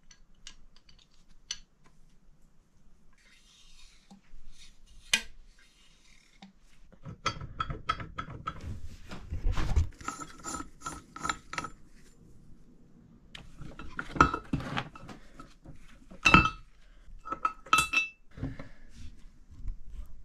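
Brass parts of a dismantled Baby Blake toilet being handled on a workbench: irregular clinks and knocks, some of them short ringing metallic clinks. They come in two busy runs, one about a third of the way in and one after the middle, with a few louder knocks in the second.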